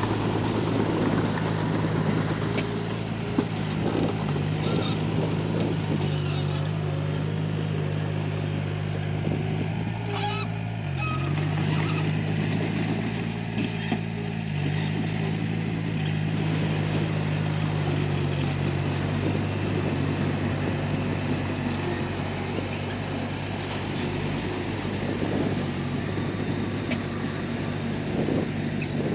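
Komatsu D31P bulldozer's diesel engine running under load at a steady pitch that dips and shifts slightly a few times, with occasional sharp clanks.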